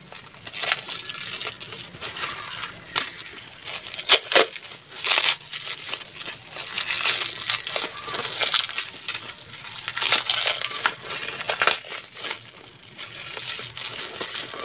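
Small hard craft items, such as a jewelry-making tool, clinking, tapping and rattling as they are handled. Irregular clicks throughout, with a few louder knocks about four seconds in and again near ten seconds.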